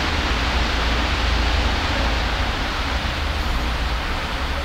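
Steady rushing noise with a low rumble underneath, even and unchanging.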